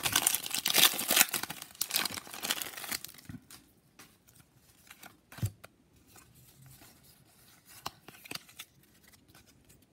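Plastic wrapper of a Pokémon card booster pack being torn open and crinkled for about the first three seconds, then the much quieter light taps and slides of the cards being handled.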